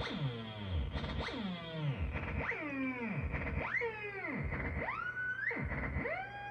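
Moog Mavis synthesizer playing swooping, gliding tones, about one a second: each note's pitch drops steeply and bends back up, over a steady high drone. Light reverb on the output.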